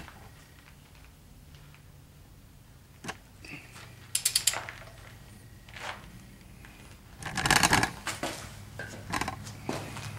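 Ratcheting torque wrench tightening the oil pump bolt to 65 ft-lb: short runs of quick ratchet clicks with single clicks in between, the loudest run about three quarters of the way through.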